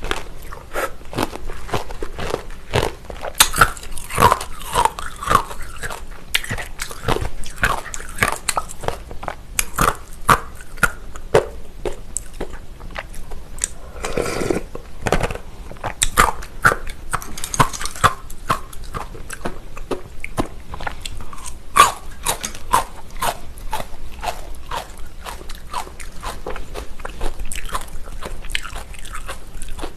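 Close-miked eating: steady chewing and crunching with wet mouth clicks. About halfway through comes a longer sip of cold soybean soup from a ladle.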